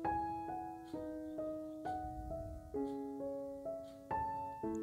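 Soft background instrumental music: a slow melody of struck notes on a piano-like keyboard that ring and fade.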